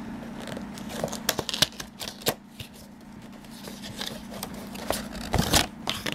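Cardboard toy box being opened by hand: scattered clicks, scraping and rustling as the tab and flaps are worked loose and the inner tray slides out.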